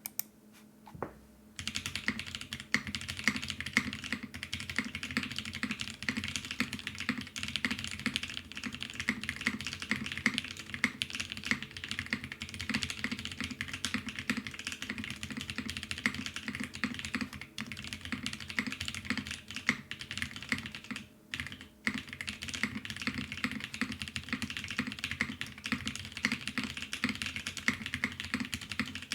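Fast continuous typing on an ai03 Vega mechanical keyboard with lubed NK Cream linear switches, a polycarbonate plate and GMK keycaps, making a dense stream of key clicks. It starts about a second and a half in and pauses briefly about two-thirds of the way through.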